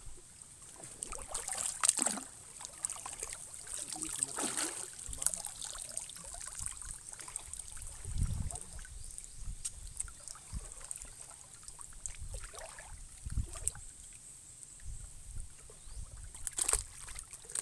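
Water splashing and sloshing in irregular bursts, with some dribbling, as someone moves and gropes by hand through shallow water for fish; a few dull low thumps come between the splashes.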